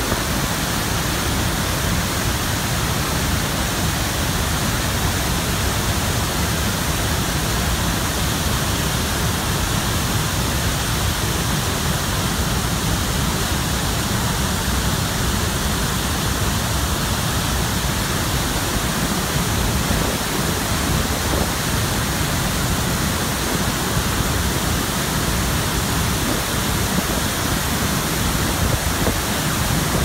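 Athabasca Falls, a large waterfall of whitewater pouring over rock ledges into a gorge, giving a steady, even rushing roar.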